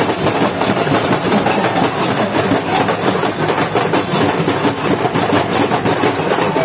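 Street procession drums, a bass drum and snare-type drums beaten with sticks, playing a fast, steady, dense rhythm.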